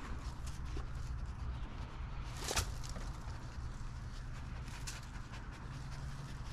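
A vizsla panting as it searches for odor, over a steady low background rumble, with one sharp click about two and a half seconds in.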